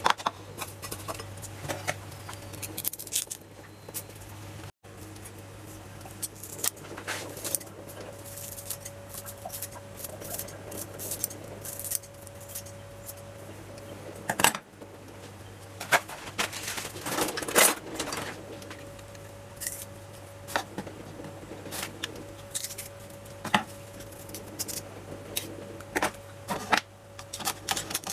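A metal spoon scraping and clinking irregularly against a ceramic bowl as soft cheese is stirred together with chopped dill, over a steady low hum.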